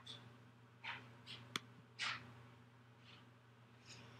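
A few faint computer mouse clicks, with soft short noises between them over quiet room hum.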